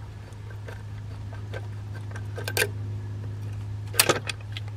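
Metal tools and parts clinking a few times as the throttle body's bolts come out and the throttle body is lifted free, with two sharper clinks in the second half. A steady low hum runs underneath.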